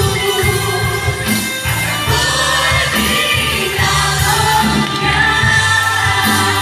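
Worship team singing a Tagalog gospel song live in mixed-voice harmony through microphones, backed by a band with a steady bass line.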